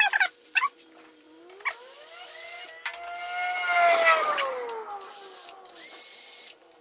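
Cordless power tool driving bolts into an AC compressor's head: its motor whines up and down with the trigger, the pitch climbing to a peak about four seconds in and falling away again. A few sharp clicks come at the very start.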